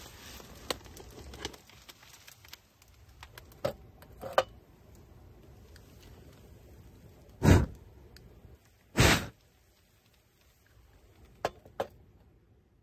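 Handling noises: scattered light clicks and knocks, with two louder, brief thumps about seven and a half and nine seconds in.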